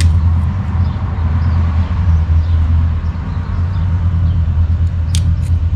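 A steady low mechanical hum, with a couple of faint clicks.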